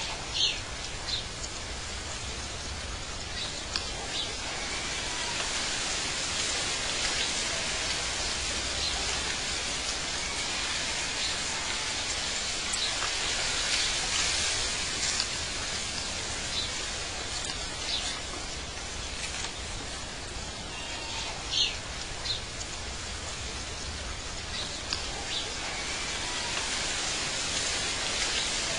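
Steady outdoor ambience: an even hiss like rain or rushing water, with short bird chirps scattered through it.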